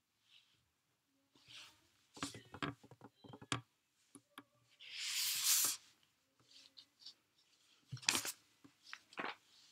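Small handling sounds: scattered clicks and short rustles, with one longer hiss about five seconds in.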